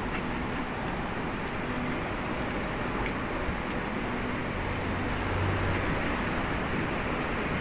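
City street ambience with steady traffic noise. A low engine hum swells briefly about five seconds in, as a vehicle passes.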